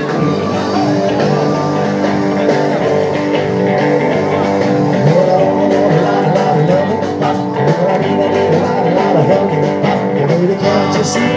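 A live band playing guitar-led rock and roll, with no vocal line in it at this point.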